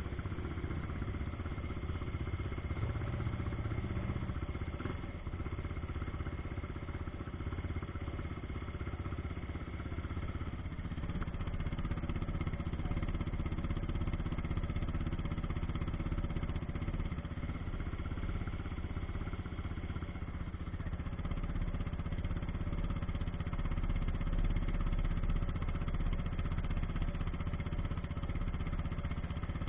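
ATV (quad bike) engine running steadily at low revs, heard close up from on board the quad.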